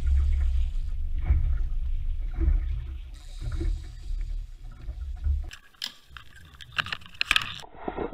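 Wind buffeting the camera microphone on an open boat, a heavy low rumble that rises and falls with the gusts, over water lapping at the hull. The rumble drops away about five and a half seconds in, and a quick run of sharp clicks follows near the end.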